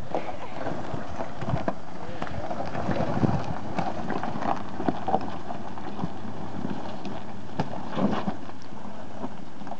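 Toyota 4Runner crawling slowly over a loose-rock trail: tyres crunching on stones with scattered sharp knocks of rock, under a steady hiss of wind on the microphone.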